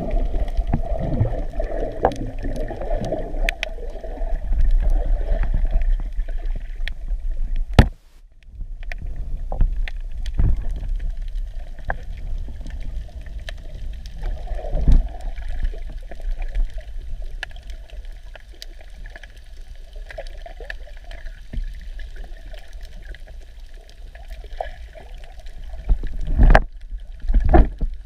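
Muffled underwater water noise picked up by a camera held below the surface while snorkelling: a low rumble and sloshing of moving water, with scattered sharp clicks and a brief dip about eight seconds in.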